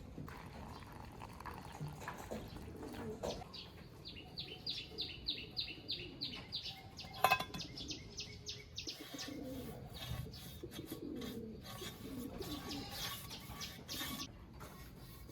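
Pigeons or doves cooing, with a run of quick rhythmic scraping strokes, about five a second, for a few seconds near the middle and a single sharp click just after them.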